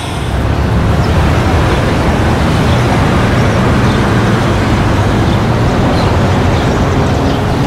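City street traffic ambience: a steady rumble of passing vehicles.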